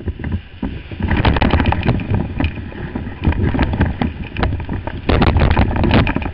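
Breaking wave's whitewater rushing and crashing around a kayak as it surfs the wave. The rush grows loud about a second in and surges again near the end.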